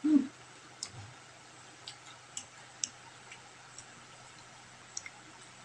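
Close-up eating sounds: scattered sharp mouth clicks and smacks of chewing, about seven of them, irregularly spaced. A brief low sound at the very start is the loudest moment.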